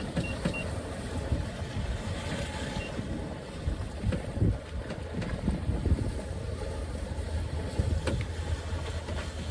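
Sailboat under way: a steady rush of wind over the microphone with water noise and low rumble, broken by scattered light knocks and clicks.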